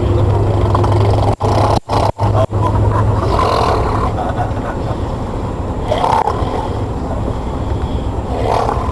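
A man snoring loudly, a rasping snore about every two and a half seconds, three in all, over the steady drone of a bus engine. The sound cuts out briefly a few times in the second second.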